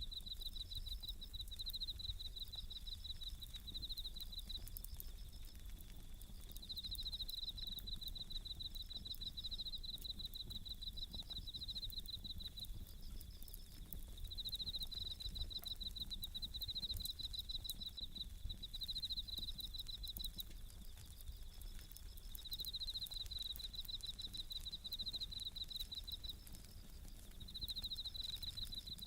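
Japanese bell crickets (suzumushi) chirping in repeated pulsed trills of a second or two each, with a faint crackle of a wood fire.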